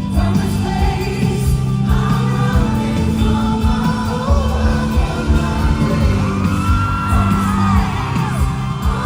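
Live pop/R&B song: a male voice singing gliding lines over a bass-heavy backing with a steady beat, with whoops from the crowd.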